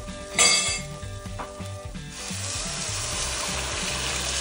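Hot water pouring steadily into a stainless steel pot of dry red lentils and spices, a rushing splash that starts about two seconds in. Background music plays throughout, and a short, loud ringing sound comes about half a second in.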